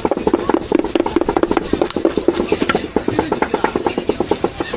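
Cleaver rapidly chopping braised pork on a wooden chopping board for roujiamo filling: a fast, even run of knocks, several a second, easing off briefly about three seconds in and again near the end.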